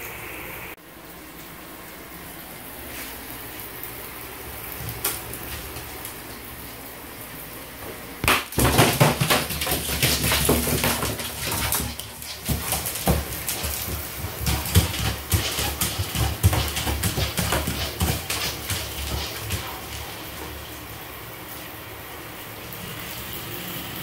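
An iguana's claws scrabbling and scraping on a bathtub's hard surface in a panicked scramble. It is a loud, irregular run of clicks and scratches that starts about a third of the way in and dies away after about ten seconds.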